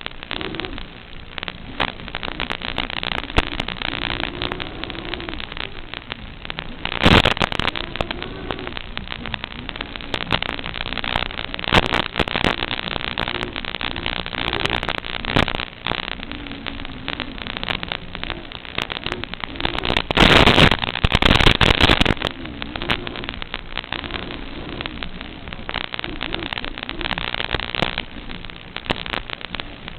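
Analog FPV audio recorded by the goggles' DVR: a crackly, noisy hiss with a faint wavering hum rising and falling underneath, likely the QAV-X quadcopter's motors changing with throttle. Louder bursts of static come about 7 seconds in and again for about two seconds past the twenty-second mark.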